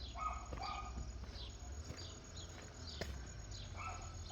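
Birds calling in short, falling chirps repeated every second or so, over a low rumble of wind on the microphone.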